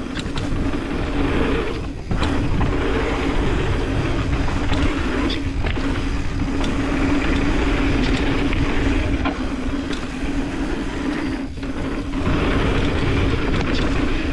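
Mountain bike riding fast down a dirt trail: the rear freehub buzzes steadily while coasting, over tyre rumble on dirt and wind on the microphone. The buzz breaks off briefly about two seconds in and again later, with a few sharp clicks and knocks from the bike over the rough ground.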